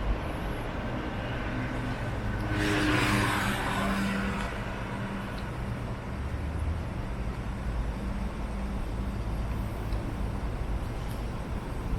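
Street traffic: a car passes close by about three seconds in, its engine and tyre noise rising and fading, over a steady low hum of traffic.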